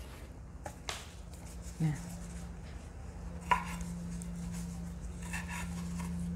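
Kitchen knife cutting raw shrimp on a wooden cutting board: a few scattered knocks of the blade against the board, the loudest about three and a half seconds in, over a low steady hum.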